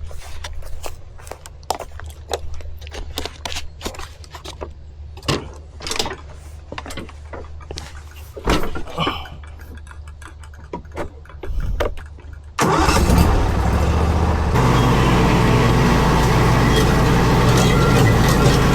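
Zero-turn riding mower: a run of clicks and knocks over a low hum, then about two-thirds of the way through its engine starts abruptly and runs loud and steady.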